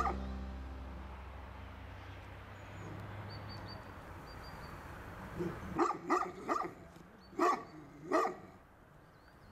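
A dog barking, about six short barks over roughly three seconds in the second half.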